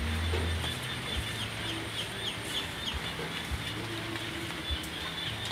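Birds chirping: a steady run of short, falling high chirps, a few a second, with a few soft low knocks underneath.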